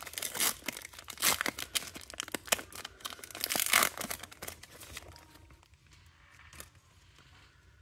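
Foil wrapper of a Panini Select basketball card pack being torn open and crinkled in the hands: dense crackling for about five seconds, then quieter with a few faint ticks.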